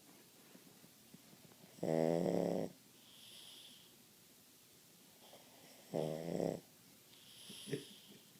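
Pug snoring deeply: two loud, buzzing snores about four seconds apart, each followed by a softer hissing breath.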